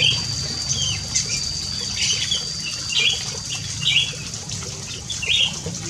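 Olive-winged bulbul giving a run of short chirps, about two a second, over a steady high whine.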